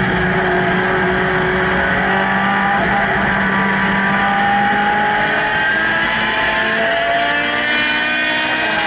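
Race car engines running hard at speed, heard over wind and road noise. The engine note climbs in pitch near the end as a Radical sports-racer comes up alongside.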